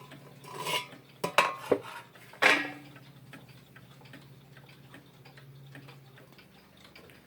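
A few sharp knocks and clatters from handling the schoolhouse regulator wall clock and the phone, loudest about a second and a half in and again near the two-and-a-half-second mark. Then faint ticking, which is likely the clock's movement running.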